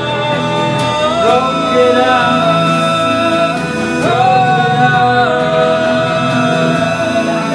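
Live electronic music from electric guitar and synthesizers: layered, held notes that slide up in pitch about a second in and again about four seconds in, over a steady repeating low end.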